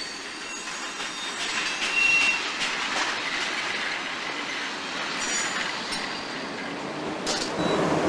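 Freight train of container wagons rolling past, its steel wheels giving brief high squeals about two seconds in and again near the end, with scattered clicks over the rail joints.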